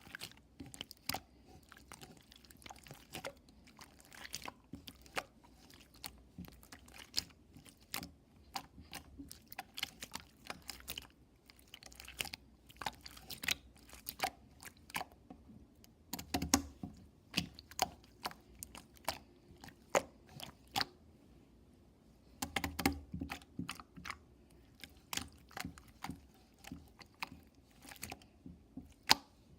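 Close, irregular crisp clicks and crunches, rapid and uneven, with louder clusters about halfway through and again about two thirds of the way in.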